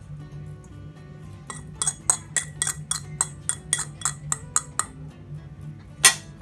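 Metal fork tapping and scraping against a ceramic plate to knock chopped coriander and green chillies off it: a run of about a dozen quick clinks, about four a second, then one louder clink near the end.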